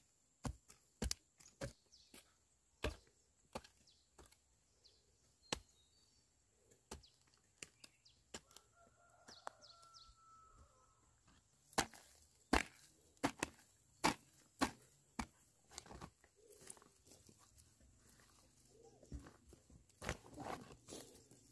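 A hoe chopping into burnt, stubbly soil: sharp single strikes about a second or two apart, a run of the hardest ones a little past halfway, and softer scuffing of loose soil near the end.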